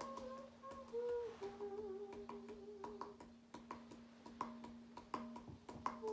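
Tabla played with light, irregular strokes over a steady drone note, with a voice humming long, wavering notes that breaks off about halfway through.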